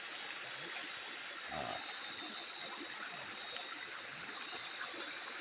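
Steady night-time insect chorus, a continuous high shrill trill. One brief low sound breaks in about a second and a half in.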